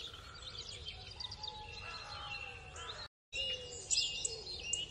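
Countryside birdsong ambience: several small birds chirping and twittering with short whistled notes, breaking off for a moment about three seconds in.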